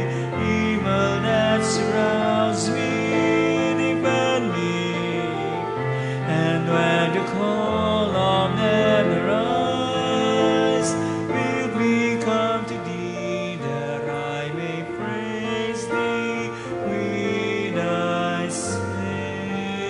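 Communion hymn sung with keyboard accompaniment: voices holding long notes over steady chords, with the 's' sounds of the words coming through now and then.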